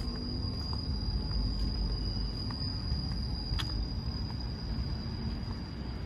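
A steady, high-pitched insect drone from the trees, holding one pitch throughout, over a constant low rumble.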